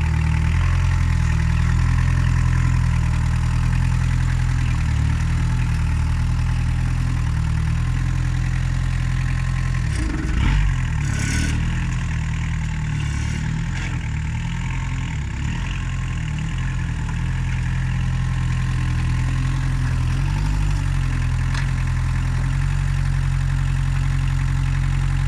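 Kubota diesel engine of a Norcar sawdust spreader running steadily at idle, with a short louder knock and hiss about ten seconds in and slight shifts in the engine note.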